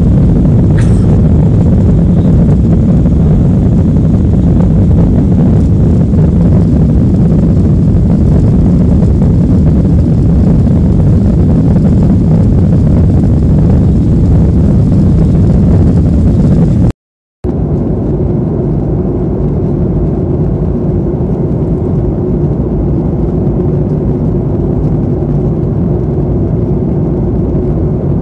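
Steady roar of an airliner cabin in flight, engine and airflow noise. After a brief dropout about 17 seconds in, a slightly quieter roar with a steady hum.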